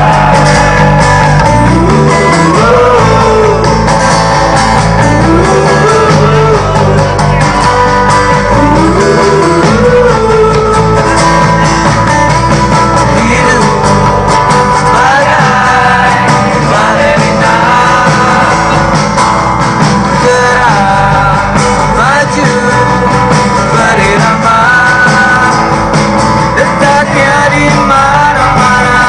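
Live rock band performing a song: guitars, bass and drums with a singer's voice carrying the melody, loud and steady.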